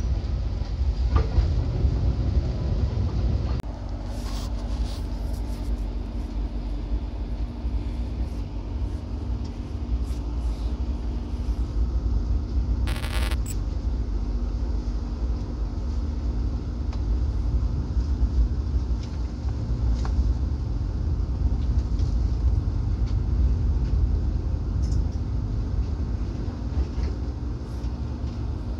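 Steady low rumble of a passenger train running on the rails, heard from inside the carriage. A steady hum joins in a few seconds in, and there is a brief hissing noise about 13 seconds in.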